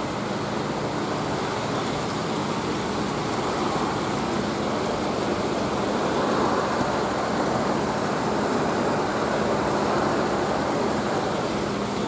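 Steady rushing of running water and aeration in a live seafood holding tank, with a faint low hum underneath.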